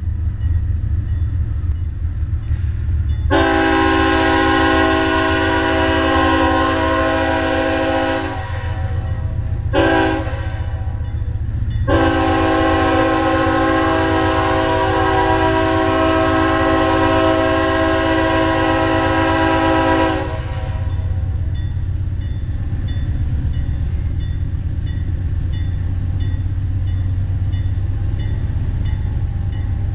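Multi-tone air horn of a CSX GE CW40-8 diesel locomotive leading an intermodal train: a long blast of about five seconds, a short toot, then a long blast of about eight seconds. Under it the locomotive's diesel engine rumbles steadily as the train pulls out of the siding.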